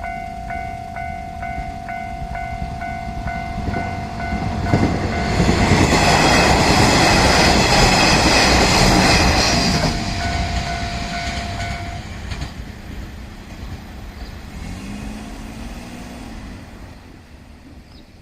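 Level-crossing warning bell ringing at about two strikes a second as a 1200-series diesel railcar passes at speed. The pass is loudest from about six to ten seconds in. The bell stops about twelve seconds in and the train's sound fades away.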